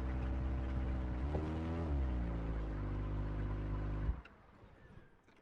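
Kawasaki ZX-25R's 250 cc inline-four engine idling, with one short blip of the throttle about a second in. The engine sound stops suddenly about four seconds in.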